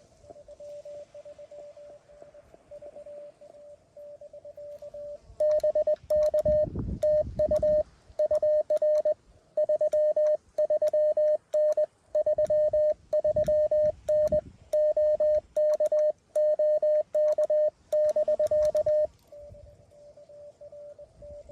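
Morse code tone of about 600 Hz from a Mountain Topper QRP CW transceiver. A fainter keyed signal is heard for the first five seconds or so. Then, for about fourteen seconds, the much louder sidetone of a keyed CW transmission plays, with a sharp click on each dot and dash. After that the fainter keyed tone returns.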